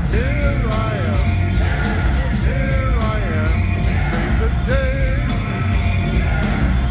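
Live rock band playing loud: drums and heavy bass under a melodic lead line that slides up and down in pitch.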